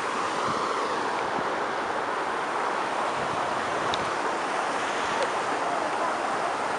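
Steady rushing of a shallow river's flowing water.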